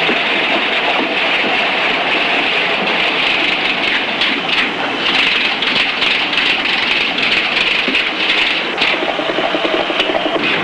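Automatic typewriter typing by itself, a dense, continuous clatter of typebars striking the paper.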